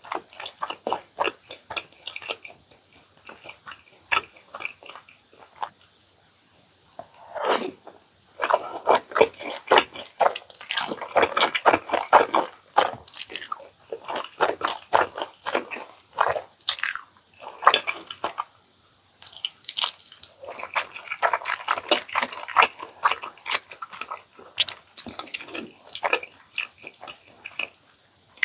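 Close-miked eating of jjajang ramyeon and chicken nuggets: steady chewing with many small wet mouth clicks, and denser, louder stretches of eating noise a third of the way in and again later on.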